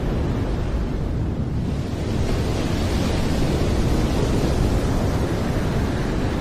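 Choppy sea washing against an offshore platform's column, with wind buffeting the microphone: a steady low rumble under a hiss that grows brighter about two seconds in.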